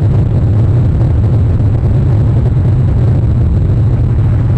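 Steady low rumble of outdoor background noise, even in level, with no bird calls.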